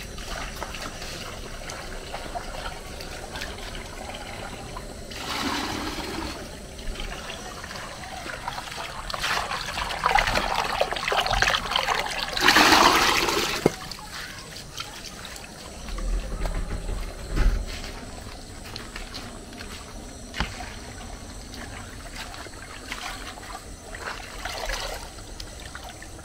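Water running from an outdoor tap into a glass bowl as leaves are rubbed and rinsed in it by hand, with louder splashing in the middle stretch.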